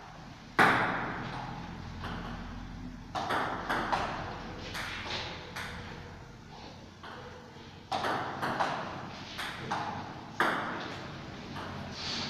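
Table tennis ball being struck by rubber paddles and bouncing on the table in rallies: sharp, quick clicks with a short echo. There is a single loud hit about half a second in, then two bursts of back-and-forth play, one around three to five seconds in and one around eight to ten seconds in.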